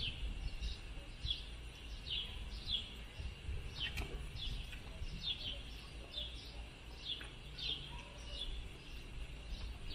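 A small bird chirping over and over outdoors, short falling notes about one or two a second, faint over a low background rumble. One sharp click about four seconds in.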